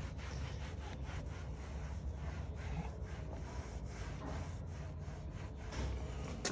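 White microfiber towel rubbing and wiping across a Toyota Tacoma's textured plastic interior door panel: a soft, irregular scuffing of cloth on plastic.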